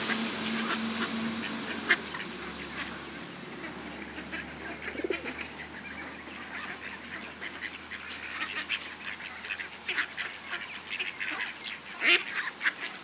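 Mallard ducks quacking in short, scattered calls that grow more frequent in the second half, with the loudest quacks near the end. A steady low hum runs under the first two seconds and then stops.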